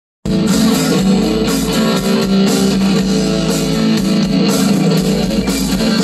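Live rock band playing through a PA sound system: electric guitar, bass guitar, keyboards and drums together, amplified and heard in the open air.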